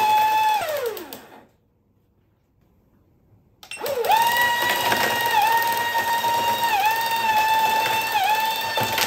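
Small DC motor and gears of a football coin-bank toy whining while overvolted from a bench power supply, dipping briefly in pitch at a regular beat. About a second in, the power is cut and the whine slides down in pitch and stops. After about two seconds of near silence it starts again at 20 V, rising quickly to a slightly higher steady whine with the same regular dips.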